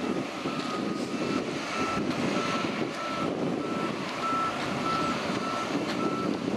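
Backup alarm of heavy earth-moving equipment beeping steadily, about twice a second, over a rumble of engine and wind noise.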